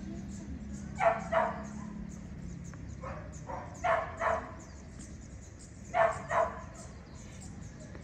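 A dog barking in doubles: three pairs of quick barks, a couple of seconds apart.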